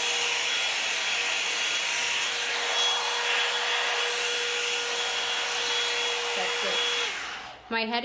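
Revlon 2-in-1 hot-air brush dryer running, a steady blowing hiss with a constant hum tone under it, drying wet hair; it is switched off about seven seconds in.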